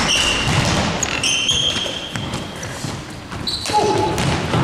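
Basketball game play on an indoor court: the ball bouncing, and several high sneaker squeaks, with a short shout near the end.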